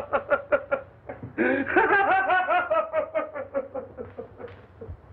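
A man laughing in quick, pitched 'ha' pulses, about five a second. After a brief pause about a second in, a longer run starts high and falls steadily in pitch, dying away near the end.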